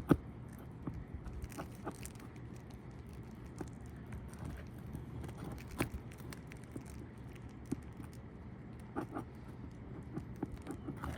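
Nail puller prying roofing nails out from under lifted asphalt shingles: scattered clicks, taps and scrapes, with a sharp knock just after the start. The old shingles are brittle and tear as they are lifted.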